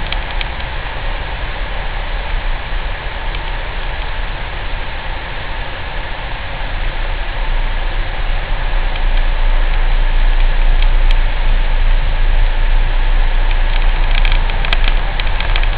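Citroen C4 Grand Picasso running with a steady noise, joined about ten seconds in by a strange, very deep humming noise that makes the sound louder and holds on to the end.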